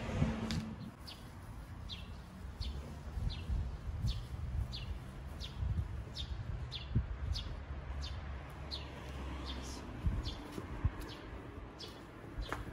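A bird calling over and over in short, high, falling chirps, about two a second, over a low rumble of wind on the microphone, with a few soft thumps.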